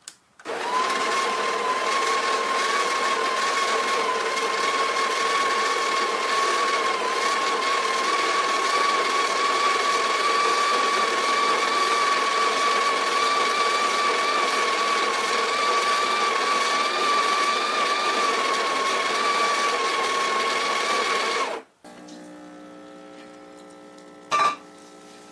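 A small electric motor runs steadily with a high whine for about twenty seconds, then cuts off suddenly. A quieter hum follows, with a single sharp click near the end.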